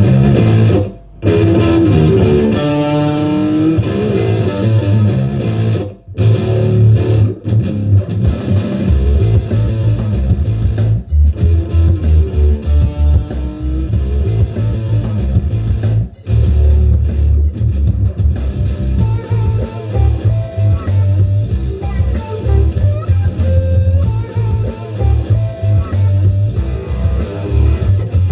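Rock music with guitars and bass played at maximum volume, with bass and treble turned fully up, through a pair of Edifier R1280T powered bookshelf speakers. The bass gets heavier about nine seconds in, and the sound level meter in front of the speakers reads around 90 dB.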